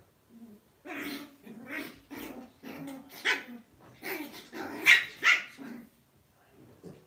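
Lhasa Apso dogs play-fighting, giving a string of short barks mixed with growls. The calls start about a second in and are loudest about five seconds in.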